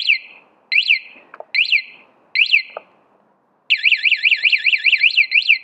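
The MOTAX Grizlik-7 ATV's key-fob alarm siren blaring. It gives separate falling-and-rising chirps a little under a second apart, then switches about two-thirds of the way through to a fast continuous warble of about six cycles a second.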